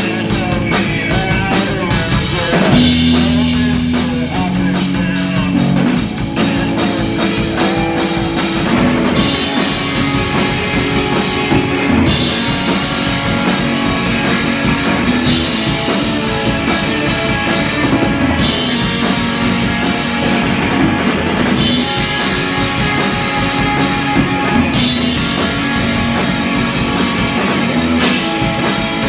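A rock band playing live: drum kit with cymbals and electric guitar over sustained low bass notes, continuous and loud.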